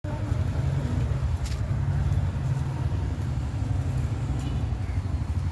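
Passenger train rolling away along the track: a steady low rumble.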